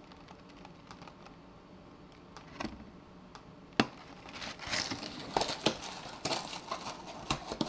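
Computer keyboard and mouse clicks: a couple of single clicks, then a quicker, denser run of taps and clicks in the second half.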